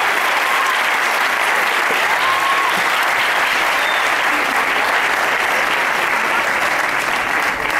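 Theatre audience applauding steadily and densely.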